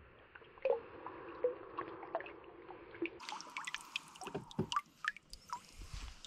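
Water dripping and trickling off a largemouth bass and wet hands as the fish is lifted out of the river: a run of small drips and splashes, thicker in the second half.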